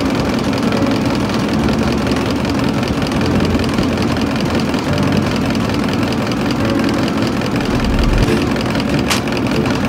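Machinery running steadily, an engine-like drone. A sharp click comes near the end.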